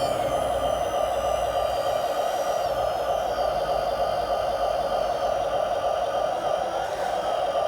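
Hydraulic pump of a radio-controlled CAT excavator model running steadily, with a faint high whine that glides up and down in pitch.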